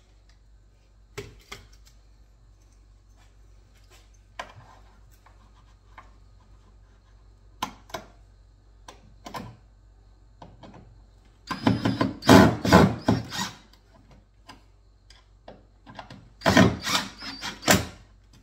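Makita 18V cordless impact driver driving screws to fix a cabinet door hinge to the side of a kitchen wall unit, in two bursts of rapid hammering, the first about two seconds long and the second about a second and a half, a few seconds apart. A few light knocks of handling come before them.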